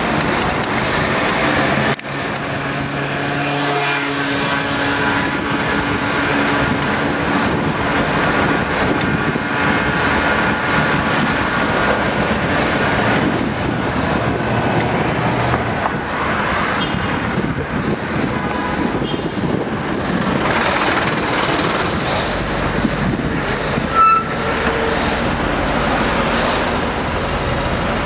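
Street traffic and road noise heard from a bicycle riding through city streets: a steady rushing rumble with the hum of motor vehicles. A brief, loud high squeak sounds near the end.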